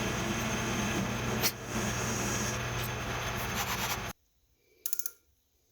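Machine tool running steadily with a constant low hum, cutting off abruptly about four seconds in. About a second later comes a brief, rapid run of clicks.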